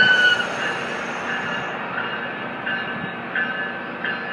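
MARC passenger train passing close by: the steady rumble of its coaches rolling on the rails, with short high wheel squeals recurring every second or less. A long high tone dies away about half a second in.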